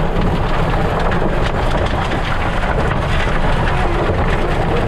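Heavy rain and wind of a severe thunderstorm, a loud, steady rush of noise.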